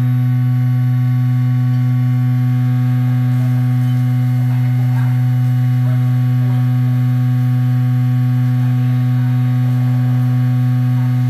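Vibratory stress relief equipment running at a steady speed: a loud, unchanging low hum with a higher overtone, from the exciter driving the welded workpiece.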